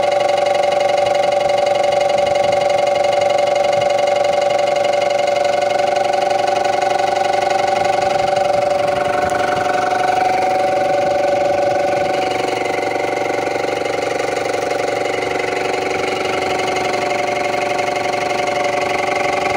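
TCM FD30 forklift engine running steadily, heard close to the torque converter bell housing. The owner traces its tok-tok knocking noise to a cracked torque converter input plate.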